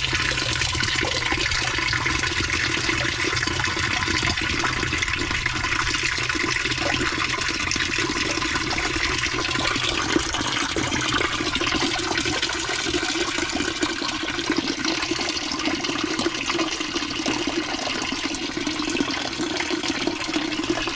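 Water running and splashing steadily into a DIY polypropylene sieve filter through its float-operated inlet valve. With the float already up, this much flow means the valve is not shutting off properly.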